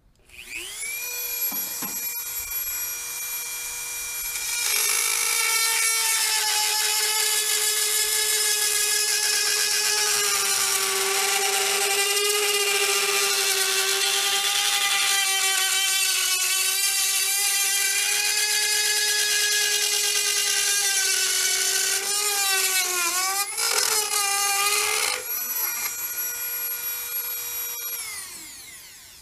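Dremel rotary tool whining at high speed as it cuts a round hole through a plastic tractor dash panel. About five seconds in it bites into the plastic, growing louder and dropping slightly in pitch under the load, and the pitch wavers a few seconds before the end. It then runs free again and winds down to a stop.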